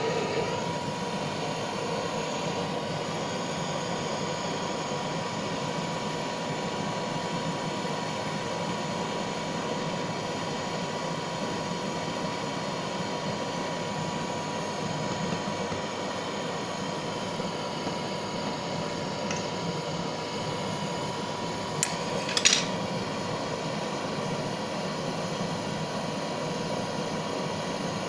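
Butane blowtorch burning with a steady, even hiss as it heats molten silver solder. Two short sharp clicks sound about three quarters of the way through.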